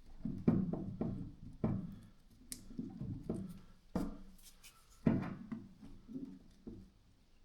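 Parts of a hammer drill's gearbox being handled and taken apart by hand: a string of irregular clicks and knocks of small parts against the housing and bench.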